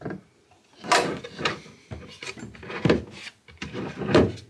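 Plywood drawers being slid in and out on metal drawer glides, with rattling slide runs and several sharp wooden knocks as they seat.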